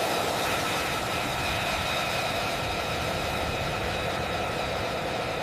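Jet fighter engine running steadily on the ground: a rushing noise with several steady high-pitched whining tones over it.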